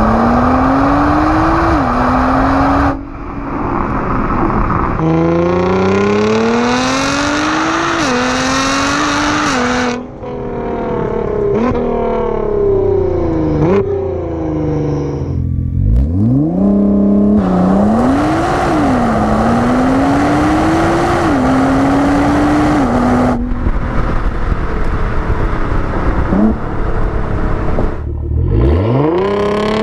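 Nissan GT-R's twin-turbo V6 exhaust, heard at the tailpipes, under hard acceleration through the gears. The pitch climbs, then drops back at each upshift, over several short runs that cut abruptly into one another. About halfway through, a steep rise from low revs opens a run on the catless Armytrix titanium straight-pipe exhaust.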